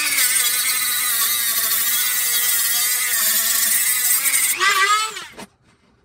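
Dremel rotary tool with an 80-grit flap disc sanding the inside of a rusty steel exhaust pipe: a steady high-pitched whine with a grinding hiss. Near the end the pitch rises briefly, then the tool cuts off about five seconds in.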